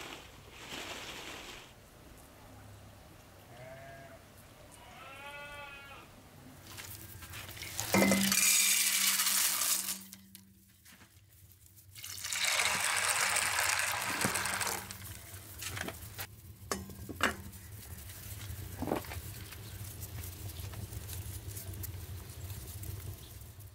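A farm animal bleats about four seconds in, one wavering call. Then come two loud spells of hissing noise, each about two seconds long, and a few light knocks after them.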